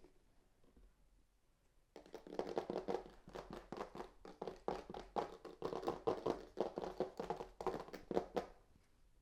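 A rapid run of taps and clicks from hands at work, starting about two seconds in and stopping shortly before the end.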